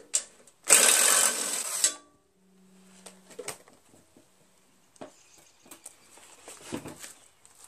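Cordless drill with a half-inch socket running once for about a second as it spins a bolt out of a lawn tractor's front bracket, then a short, faint motor hum. Light clinks and handling noises follow as the drill is set down.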